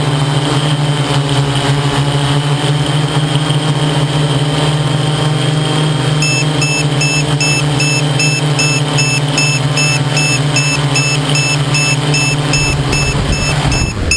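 Electric motors and propellers of an XAircraft X650 V8 multirotor humming steadily at a constant pitch, heard from its onboard camera. About six seconds in, a high electronic beep starts repeating a couple of times a second. Near the end the motor hum stops as the aircraft settles onto the grass.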